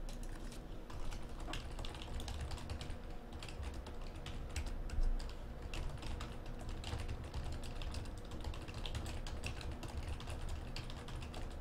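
Typing on a computer keyboard: a steady run of irregular key clicks over a low steady hum.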